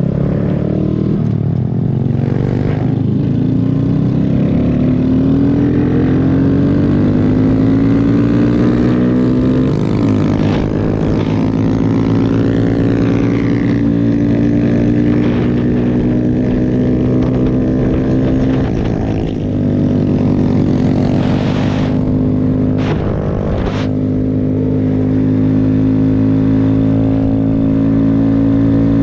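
Motorcycle engine pulling away and accelerating through the gears, heard from a bike-mounted camera: its pitch climbs, drops at an upshift about ten seconds in, climbs again, drops at another shift a little before twenty seconds, then holds steady at cruising speed.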